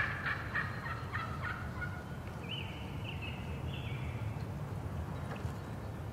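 Wild turkey gobbler gobbling: a rattling gobble in the first second and a half, then a short run of higher, clearer notes about two and a half seconds in.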